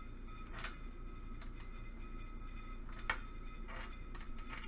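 A handful of light, irregular clicks and taps from jumper wires and pin connectors being handled on an Arduino board, the sharpest about three seconds in, over a steady low electrical hum.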